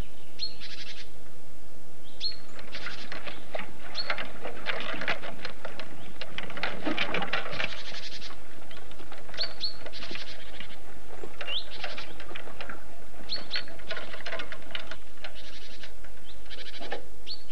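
Small birds chirping and twittering: short sharp chirps that rise at the end, recurring every second or two, mixed with quick runs of chatter.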